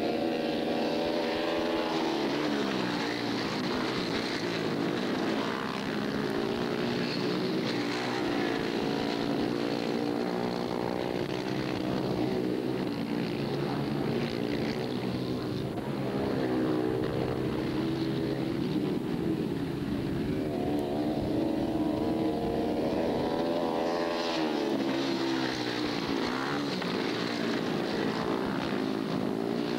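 Several racing motorcycle engines running hard together, their pitch rising and falling as the bikes accelerate, slide through the corners and pass.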